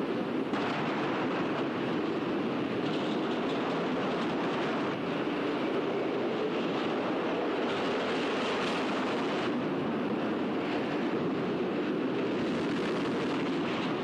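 Roller coaster cars running along the track, a steady noise without a break.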